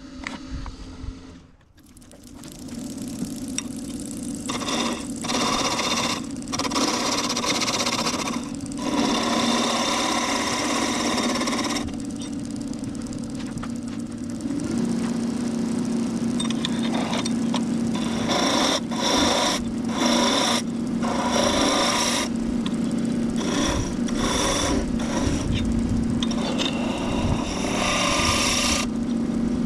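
Wood lathe running with a steady motor hum, while a hollowing tool cuts into the spinning hardwood blank in repeated bursts of scraping. The sound dips briefly about a second and a half in before the lathe hum comes back up.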